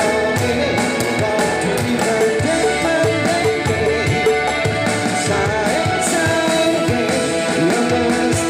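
Live band music: a male singer with guitar, backed by drum sounds from an electronic drum pad struck with sticks, taken straight from the stage monitor feed.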